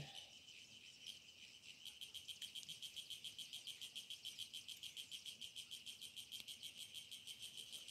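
Faint insect chirring: a rapid, even pulsing at one high pitch, setting in fully about two seconds in and then holding steady.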